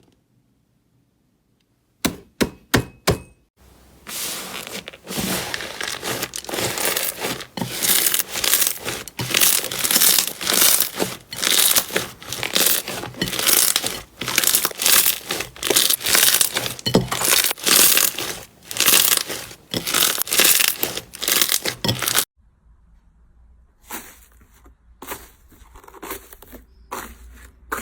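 Slime being pressed and squeezed by hand, crackling and popping. About two seconds in come a few sharp separate snaps, then a dense run of crackles that stops abruptly near the end, followed by fainter scattered clicks.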